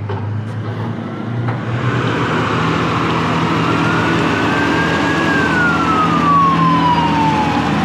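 Forklift engine running as it drives across the lot, over road traffic noise. A siren sounds over it, rising slowly in pitch until a little past halfway, then falling away toward the end.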